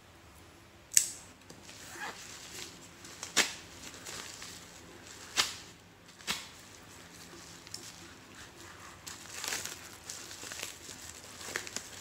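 A yellow padded mailer being cut and torn open with a folding knife: crinkling and tearing of the envelope, with four sharp clicks in the first half.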